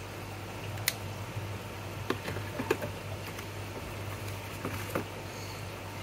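Handling noise from a handheld meter and its hard plastic carry case: a few light plastic clicks and knocks, with a steady low hum underneath.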